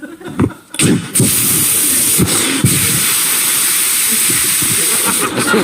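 A man imitating a running shower with his mouth into a microphone. After a few short sounds, a steady hissing spray starts about a second in and holds.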